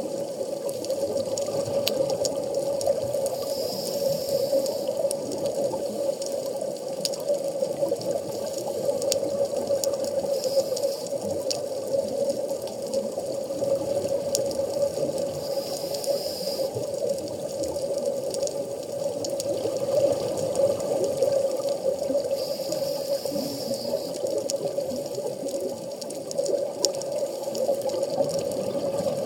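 Underwater reef ambience heard through a camera housing: a steady watery wash with a low hum, scattered sharp clicks, and a hiss of bubbling about every six seconds as scuba divers breathe out through their regulators.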